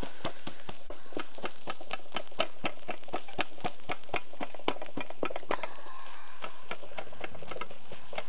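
Kothu roti being chopped on a flat griddle with two metal blades: rapid, rhythmic clanging strikes, about four a second, easing briefly about six seconds in and then picking up again.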